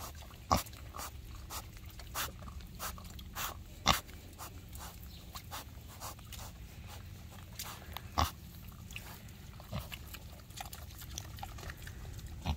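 Pigs eating at close range: short crisp chewing sounds, about two a second and later more irregular, with three louder ones standing out.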